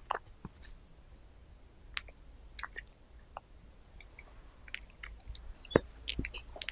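Cat eating cubes of raw meat, close to the microphone. Scattered wet clicks and chewing sounds come few and far apart at first, then quicken and grow denser near the end.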